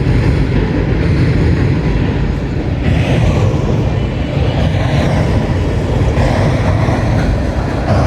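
A train rolling past with a steady, loud rumble of its cars on the rails.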